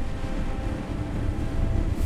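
A low, steady rumble of noise with no distinct tones, growing slightly louder near the end.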